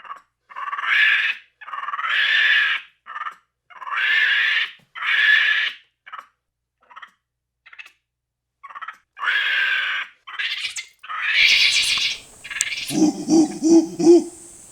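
A series of loud, harsh animal screeches, each about a second long, with silent gaps between them. Near the end comes a quick run of lower, pulsed calls.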